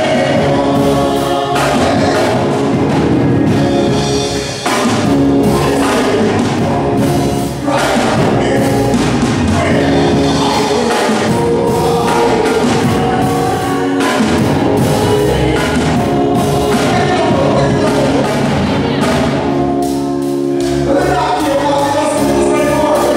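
Gospel song: a man singing lead into a handheld microphone over loud instrumental backing with percussion.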